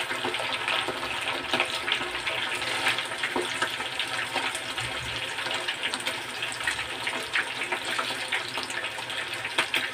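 Breaded chicken cordon bleu deep-frying in a small saucepan of hot oil: the oil sizzles steadily, thick with small crackling pops.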